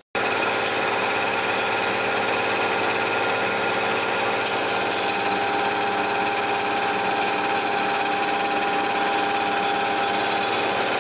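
Vertical milling machine side-milling the edge of a plate with an end mill under power feed: a steady cutting noise with several held tones over the spindle's run.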